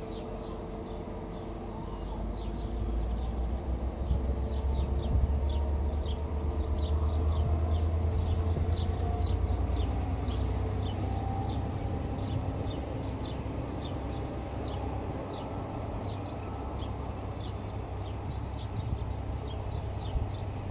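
Low rumble of a train that swells for several seconds and then eases off, with a steady run of short high chirps, a few a second, over it.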